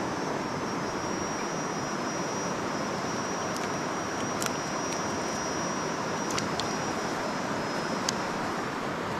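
Steady rush of flowing river water, with a thin high whine over it that fades near the end and a few faint clicks in the middle.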